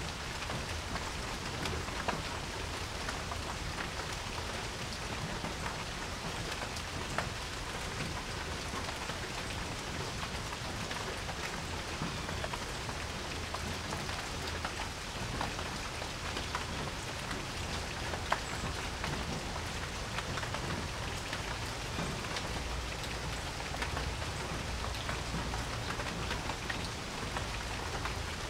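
Steady rain falling on a porch: an even patter with many separate drops ticking on hard surfaces, a few of them louder.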